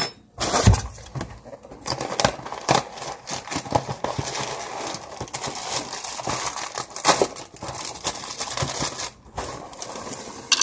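A thump on the tabletop just under a second in, then a long run of crinkling and crackling as the plastic inner bag of a cereal box is pulled open.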